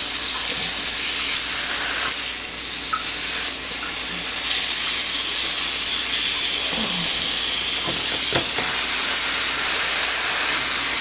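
Raw ground meat sizzling steadily on the hot plates of a George Foreman electric indoor grill, a loud even hiss that grows a little louder near the end as the lid is pressed down on it. A couple of light knocks sound about two-thirds of the way in.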